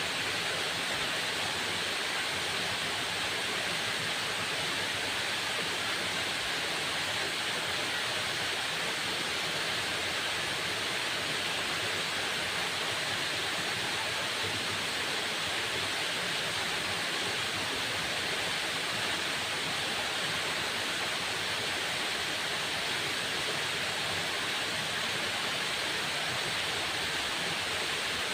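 Waterfall: falling water making a steady, unbroken rush, brightest in its upper hiss.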